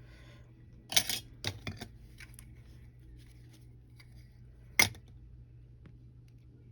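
Small hand tool clicking and scraping against an iPhone's camera surround while picking off old glue residue: a few light scrapes and taps about a second in and one sharp click near five seconds, over a low steady hum.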